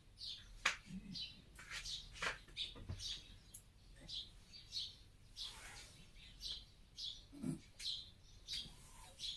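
A small bird chirping over and over, short high chirps about twice a second, with a few sharp clicks in between.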